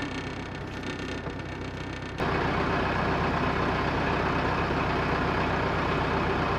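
A vehicle engine idling steadily. About two seconds in, the sound jumps suddenly louder and fuller and then holds steady.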